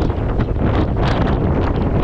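Gale-force wind blowing hard across the microphone: a loud, steady rush of noise with heavy low buffeting and quick, flickering gusts.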